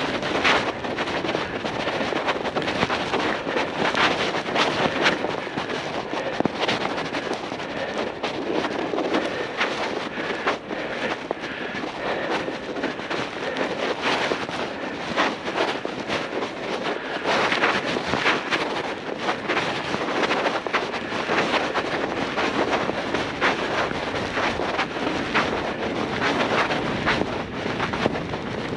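Bicycle rolling through fresh snow: a continuous crunching hiss from the tyres, dotted with frequent short clicks and rattles, with wind buffeting the action-camera microphone.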